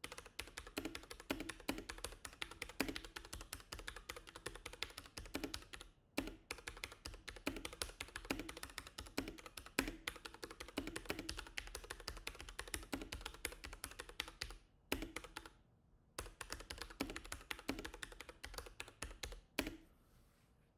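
Fast typing on a QPAD MK-75 mechanical keyboard with Cherry MX switches: a dense run of key clicks with a deeper thump every second or so. It pauses briefly about six seconds in and again around fifteen seconds, and stops about a second before the end.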